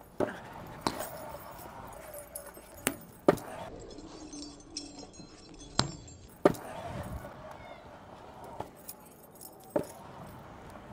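A stunt scooter's wheels roll over concrete skatepark ramps, with metallic rattling from the scooter. Several sharp clacks come from landings and the deck striking the concrete.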